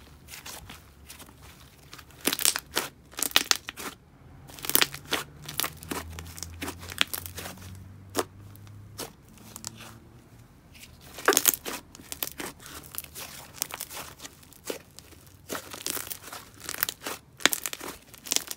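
Hands stretching, folding and pinching a thick, creamy pink clay slime, giving irregular sticky pops, crackles and tearing sounds in clusters with short pauses between.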